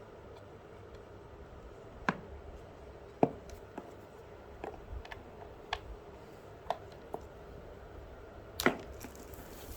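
A series of sharp, irregular clicks and light knocks from objects being handled, about eight in all, the loudest about two, three and nine seconds in, over a low steady background hum.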